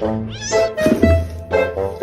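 Domestic cat meowing once, a rising-then-falling call near the start, over background music with a steady beat.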